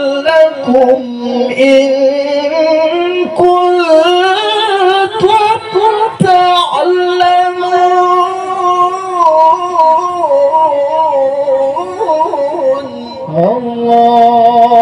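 A male qari's voice in melodic Quran recitation (tilawah), drawing out long melismatic held notes with wavering ornaments and a few short breaks between phrases.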